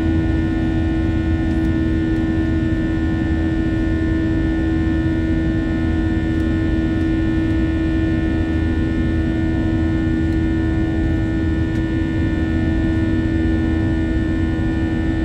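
Inside an Airbus A321's cabin, the jet engines drone steadily during the climb-out. There is a strong steady hum, several fainter steady higher whine tones, and a low rumble underneath.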